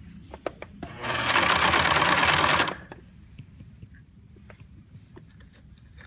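Electric sewing machine stitching satin dress fabric: a steady low running hum with light clicking. About a second in comes a loud rushing noise lasting under two seconds, the loudest sound here.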